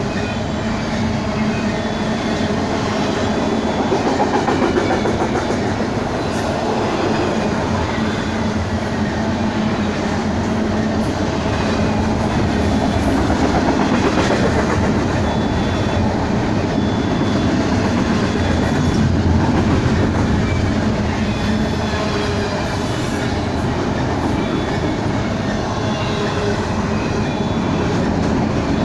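Double-stack intermodal freight train's well cars rolling past, a steady rumble and clatter of steel wheels on rail, with a faint high squeal that comes and goes.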